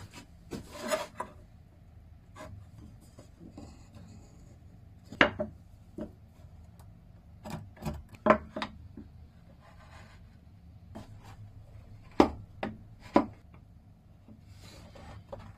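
Marking knife and wheel marking gauge scratching layout lines into a hardwood rail, with sharp clicks and knocks of the steel tools on the workbench, the loudest several seconds apart.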